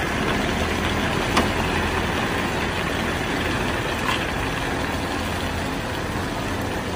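Heavy tow truck's diesel engine running steadily at low speed while towing a tipper lorry, a low even drone with a couple of faint clicks.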